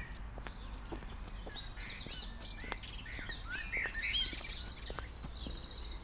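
Songbirds singing and chirping, with quick runs of repeated high notes that are busiest in the middle, over a low steady rumble of outdoor background noise.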